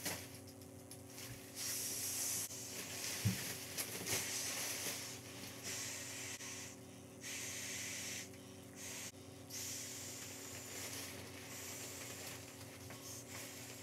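A full-length inflatable sleeping pad being blown up by mouth: several long, breathy exhalations rushing air into the valve, with short pauses between breaths.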